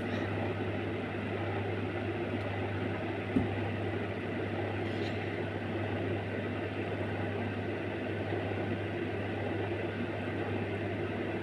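Steady low hum under even background hiss, with a single soft knock about three and a half seconds in.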